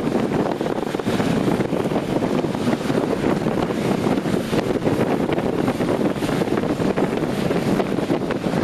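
Airbus A380's four Engine Alliance GP7200 turbofans running at taxi power as the airliner rolls past, a steady rushing jet noise with no change in pitch.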